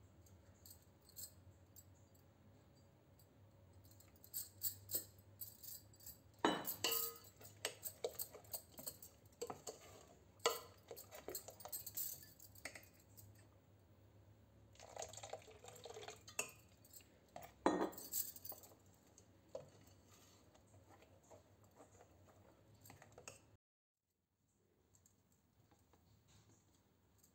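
Steel spoon stirring thick moong dal batter in a stainless steel bowl: wet stirring sounds with scattered clinks of the spoon against the bowl, the sharpest a few seconds apart through the middle. The sound stops abruptly near the end.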